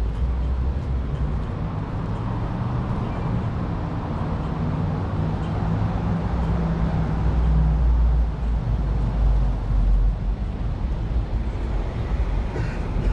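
City street traffic: the steady low hum of vehicle engines with tyre noise that swells as a vehicle passes midway.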